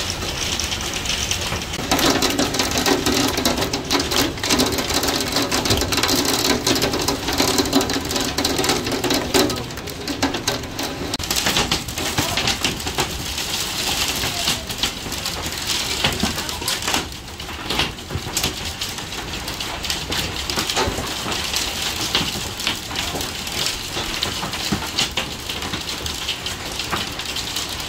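Heavy hail and rain pelting a wooden deck and the house windows: a dense, steady clatter of many small hailstone hits over the rush of rain.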